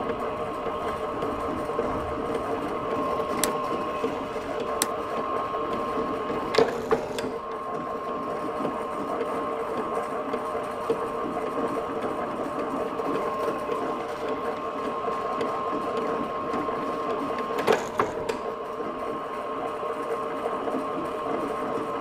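Motor-driven soap stamping press with a flywheel, running with a steady hum, with a few sharp clacks as the die strikes the soap; the loudest come about a third of the way in and again near the end.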